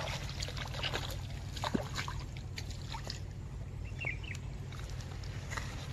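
Steady low wind rumble on the microphone by a river, with scattered light clicks and rustles of handling and a short high chirp about four seconds in.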